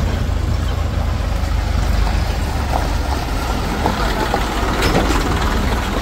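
Heavy diesel engine of construction or farm machinery running steadily, its sound mostly low-pitched and even.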